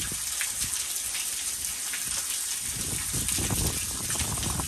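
Heavy, steady rain falling on grass, with water streaming off the edge of a porch roof and splashing.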